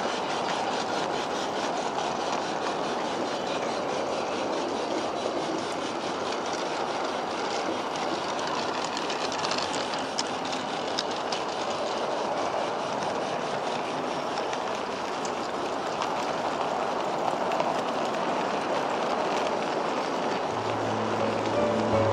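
A long train of G-scale model goods wagons rolling past on garden-railway track: a steady rolling noise of small metal wheels on rail, with a few faint clicks. Music comes in near the end.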